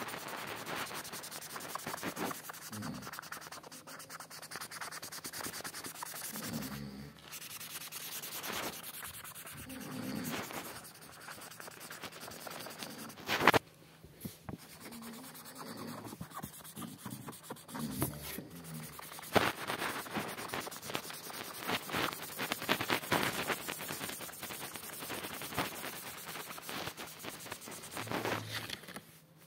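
Red marker scribbling back and forth on paper, colouring in an area in quick rasping strokes with brief pauses. A single sharp knock about thirteen seconds in.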